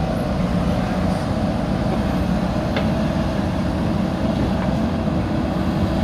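JCB 3DX Super backhoe loader's diesel engine running steadily under load as the backhoe lifts its bucket out of the trench and swings the arm aside, with a steady whine over the low engine drone and a faint clank about three seconds in.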